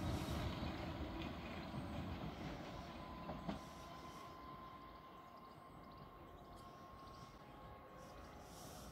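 Merseyrail electric train pulling away down the line, its sound dying down over several seconds, with a short click about three and a half seconds in.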